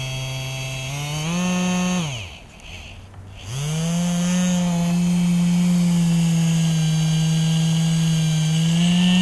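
Small 12-volt brushed DC motor, rewound with new copper wire for more speed, spinning free with a loud, fast whine. About a second in it speeds up; a second later it cuts out and spins down, and after about a second it starts again, whining back up to a steady speed.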